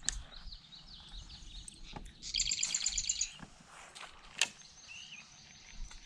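A songbird singing: high chirps and a rapid trill of about ten notes a second lasting about a second near the middle. A few sharp clicks, the loudest about four and a half seconds in.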